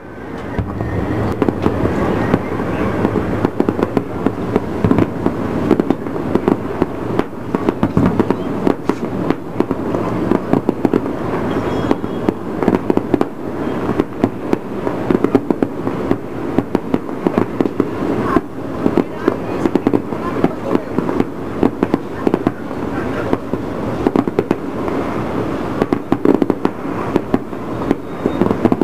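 Fireworks display: a dense, continuous crackle of rapid pops and bangs, with louder bangs standing out every second or so.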